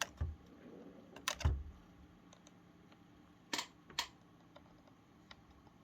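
Sharp plastic clicks and taps of a flat screwdriver working the latch of a flex-cable connector clip on a car radio's circuit board. The clicks come in small groups: one at the start, a pair about a second in, and two more about three and a half seconds in.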